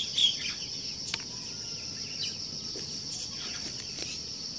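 Steady high-pitched insect chorus, with a run of quick repeated bird chirps that stops within the first half second and a few faint chirps after. A single faint click sounds about a second in.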